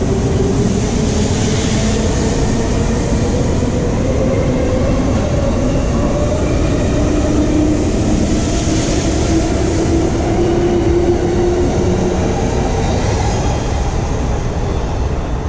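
A JR 651 series electric train pulling out of the platform and gathering speed past, with a steady rumble of wheels on rail and running gear. A faint tone rises slightly in pitch midway.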